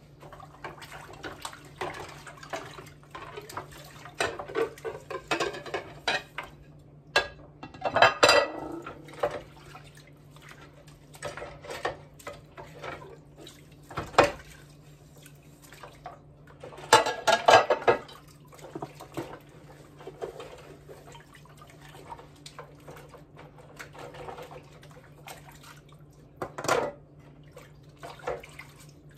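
Dishes being washed by hand in a sink of water: china plates clinking and clattering against each other and the sink, with water sloshing and splashing, loudest about eight seconds in and again around seventeen seconds. A steady low hum runs underneath.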